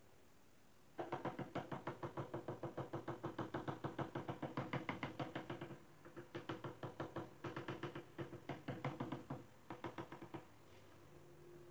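Quick, even taps of a mallet on a freshly laid ceramic floor tile, bedding it into the mortar. The taps come about five a second in a long run, then in shorter bursts with brief pauses.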